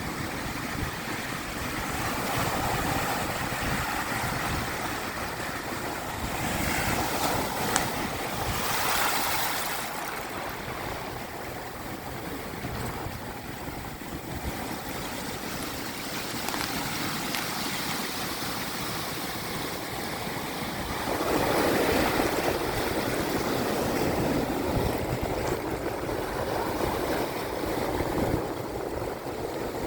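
Small ocean waves washing up over sea shells on the shore and running back, a steady rushing that swells into two louder washes, about 7 s and about 21 s in.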